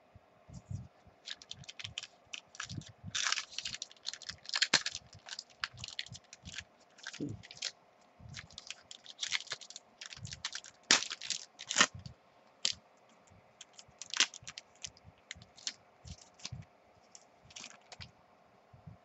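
Football trading-card pack torn open by hand: the wrapper crinkling and tearing in uneven clusters of sharp crackles and clicks, with the cards being handled and flicked against each other.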